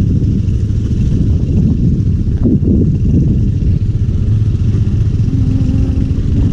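A vehicle engine running steadily with a loud low rumble, a brief clatter about two and a half seconds in.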